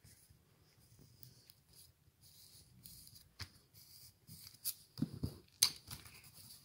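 Faint scratching of a colored pencil on paper as a drawing is coloured in, with a few sharp taps and clicks in the second half.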